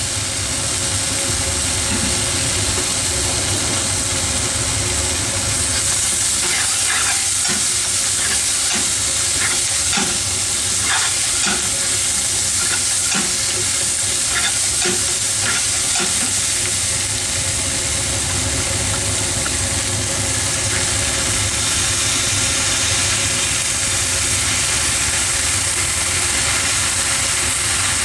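Chicken and vegetables sizzling in a hot frying pan while a wooden spatula stirs and scrapes them, with scraping strokes coming thickest in the middle stretch. A steady low hum runs underneath.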